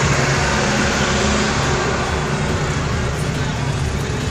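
Road traffic noise: vehicle engines running with a steady rumble.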